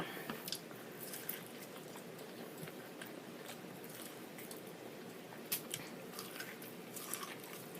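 Faint chewing of corn on the cob, with a few soft clicks and crunches spread through.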